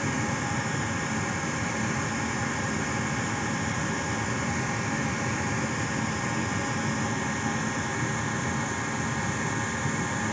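Gas furnace draft inducer motor running steadily, a constant hum with faint steady tones, while the furnace is in its ignition sequence with the igniter warming up.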